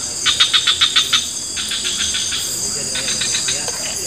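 Insects calling: a steady high-pitched drone with a cricket chirping over it in rapid pulse trains of about ten pulses a second, twice in the first half and once more faintly near the end.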